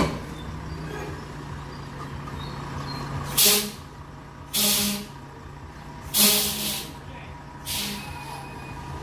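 Air brakes of a Volvo 440-hp tractor unit hissing in four short, loud bursts about a second and a half apart, over the steady run of its diesel engine as the truck inches the loaded trailer along.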